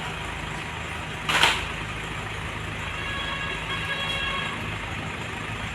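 Steady background rumble with one short, sharp impact, like a stamp or slap, about a second and a half in.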